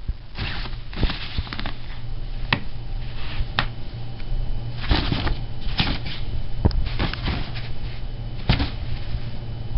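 Nylon fabric of a pop-up cat cube rustling and scratching as a cat plays inside it, with irregular sharp scrapes and taps, over a steady low hum.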